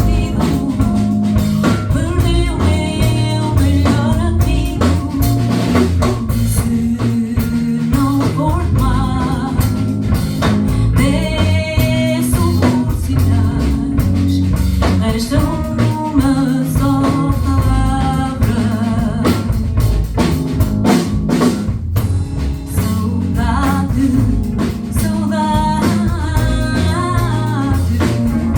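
Live band playing a song: a sung melody over drum kit and guitar.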